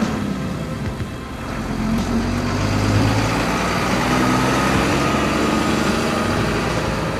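A van and a box truck driving past one after the other, engines running, the sound growing louder from about two seconds in as the truck comes close.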